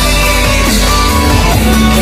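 Loud background music with a strong, steady bass.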